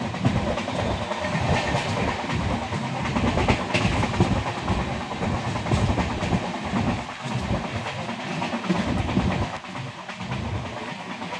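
KSR Bengaluru–Kanyakumari Express running at speed, heard from an open coach doorway: a steady rumble of the wheels on the rails, with uneven clattering and an occasional sharp click over the track.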